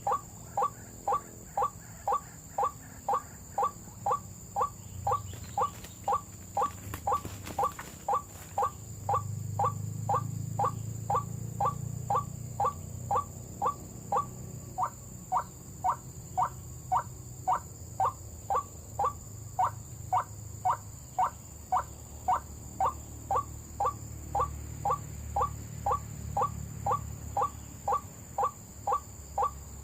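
White-breasted waterhen lure call: one short note repeated evenly, about two times a second, without a break.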